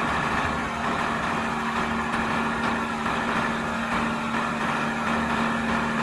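Renault dump truck's diesel engine running steadily with a constant hum while the hydraulic tipper raises the loaded body.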